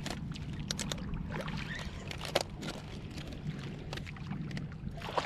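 A hooked shark splashing and thrashing at the water's surface close to shore, with scattered crunches and clicks over a steady low rumble; one sharper click about two and a half seconds in.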